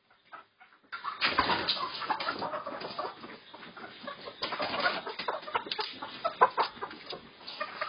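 Flock of white layer hens squawking and clucking in alarm, with wings flapping, as they are grabbed by hand and loaded into a bamboo basket. Quiet for about a second, then a dense, continuous clamour.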